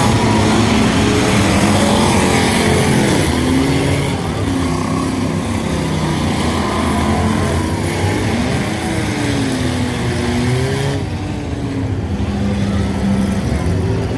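Several street cars' engines running and revving together as they race on a dirt track, their pitches rising and falling as they speed up and slow down.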